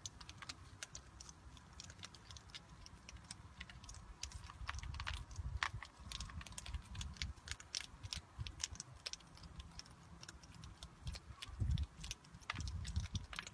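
Several hedgehogs crunching dry food pellets from a dish: a rapid, irregular run of small crisp clicks and crunches, with occasional low rumbles.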